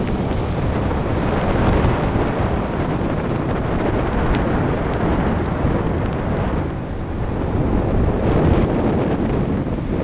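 Strong storm wind buffeting the microphone in a steady low rumble, over the rush of heavy surf breaking on the beach.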